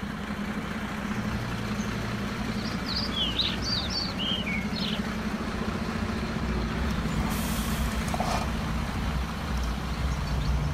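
Steady low engine-like drone of an RC model truck, idling with small shifts in its pitch about a second in and again past the middle. A few short bird chirps come through around the third to fifth second.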